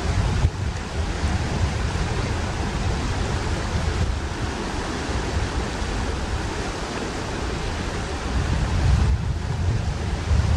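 Fast-flowing river water rushing steadily, with wind buffeting the microphone as a low rumble.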